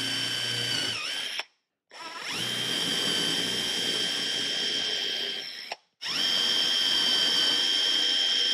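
Cordless Festool drill running steadily with a high whine as it bores holes for threaded inserts in a pine board. It stops about a second and a half in and again about two-thirds of the way through, running in three separate stretches.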